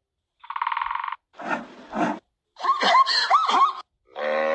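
Recorded animal calls played one after another. First a woodpecker's fast rattling call, then a few harsher calls with quick pitch sweeps. Near the end a zebu starts to low.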